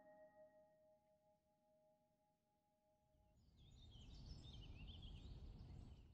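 Very faint: a few held music notes die away, then about halfway through a low outdoor rumble with quick bird chirps rises and runs until near the end.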